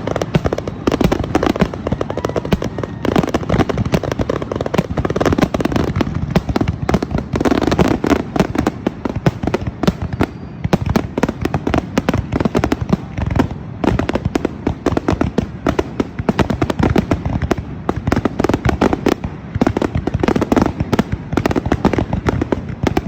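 Firecrackers and fireworks going off in a dense, continuous crackle of rapid bangs with no pauses.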